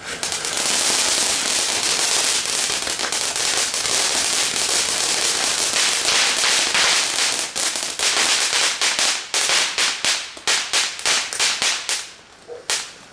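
A "Fright Fest" consumer firework going off in a long run of crackling pops that sound like bubble wrap. The pops come thick and fast at first, then thin out into separate bangs about eight seconds in and die down near the end.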